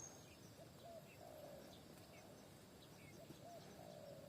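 A dove cooing faintly, two phrases each of two short coos and a longer trilled coo, with small birds chirping faintly.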